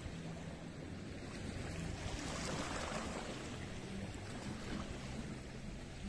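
Sea surf washing on the shore, with one wave surging up and breaking about two seconds in, then drawing back.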